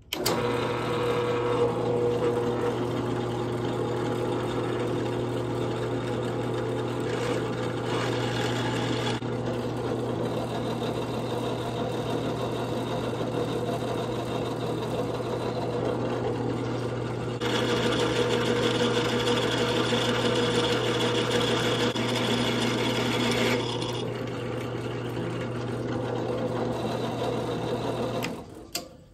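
Benchtop drill press motor running steadily while a 3/32-inch pilot bit drills through a solid stainless steel bolt release button lubricated with cutting oil. The sound grows louder and harsher from about 17 to 24 seconds in, and the motor stops about a second before the end.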